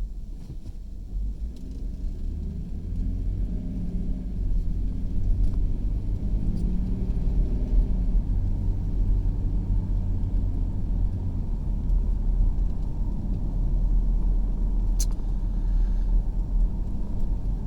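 Car driving on a town road, heard from inside the cabin: a steady low rumble of engine and tyre noise that grows louder over the first few seconds as the car picks up speed. A single short click sounds near the end.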